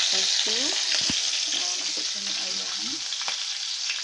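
Sliced garlic, lemongrass and bird's eye chillies sizzling in hot oil in a stainless saucepan, a steady hiss as they are stirred and fried until browned. A couple of sharp knocks of the stirring utensil against the pan come about a second in and again near the end.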